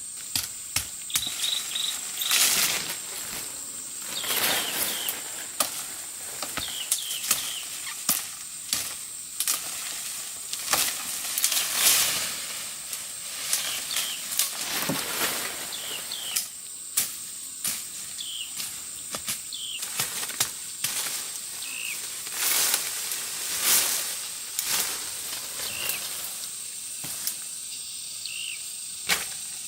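Steady high-pitched insect chorus, broken by frequent clicks, short swishing noises and small high chirps.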